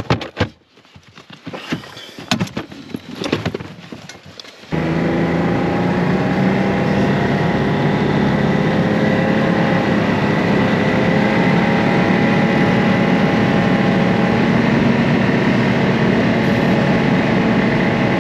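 Knocks and clatter of gear handled in a plastic rear storage trunk. Then, from about five seconds in, an off-road vehicle's engine runs steadily at an even pitch while the machine is ridden across the ice.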